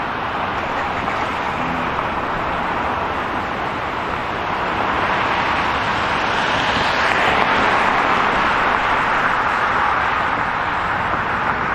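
Steady city street traffic noise, with a passing vehicle's tyre and engine noise swelling louder about halfway through and slowly easing off.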